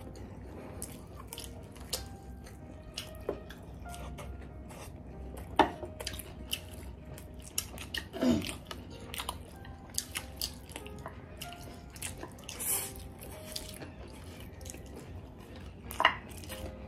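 Close-up eating sounds of two people eating chowmein noodles and fried chicken legs with chopsticks: wet chewing and slurping with many short clicks, a few louder ones about five and a half, eight and sixteen seconds in.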